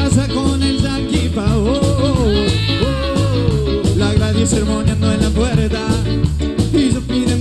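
A live cuarteto band playing: a lead vocal line over electric guitar, bass, saxophones, keyboard and drums, with a steady pulsing beat.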